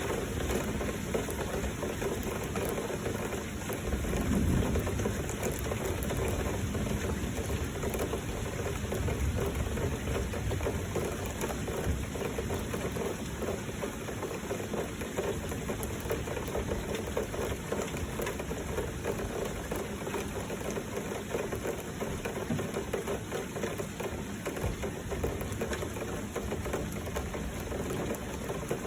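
Heavy rain falling steadily, a dense even hiss of drops, with a brief low swell about four seconds in.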